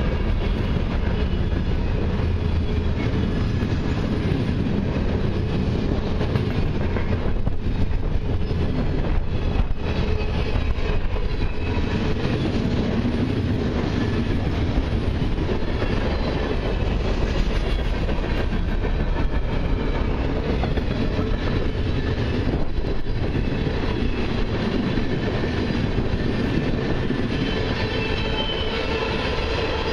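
Freight cars of a long mixed freight train rolling past close by at a steady speed. The steel wheels on the rails make a continuous, even rolling noise.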